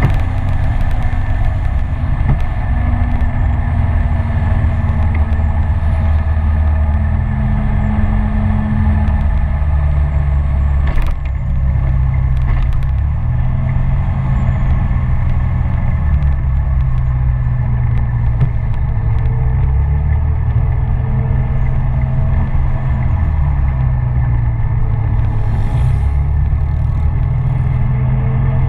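SYM Citycom 300i scooter's single-cylinder engine running at road speed, its note stepping up and down with the throttle, under steady wind rumble on the bike-mounted microphone. A single sharp knock comes about a third of the way through.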